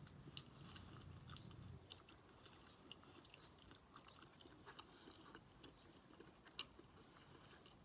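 Faint close-miked chewing of food, with scattered small mouth clicks and crunches, two of them sharper about three and a half and six and a half seconds in.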